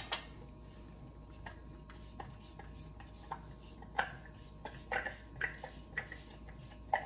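Blended marinade being poured from a plastic food processor bowl into a stainless steel mixing bowl, with a string of light, irregular clicks and taps as the bowl and spoon knock against the metal.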